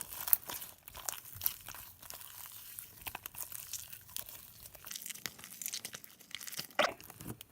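Sticky, jiggly homemade borax slime being squeezed and stretched by hand: many small irregular wet clicks and crackles, with one louder squish near the end.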